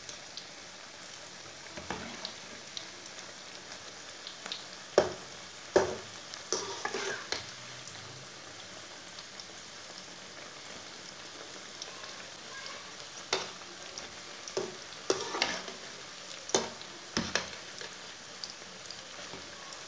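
Cabbage pakoras deep-frying in hot oil in a metal kadhai, a steady sizzle. A metal slotted spoon knocks and scrapes against the pan a dozen or so times as the pakoras are lifted and turned.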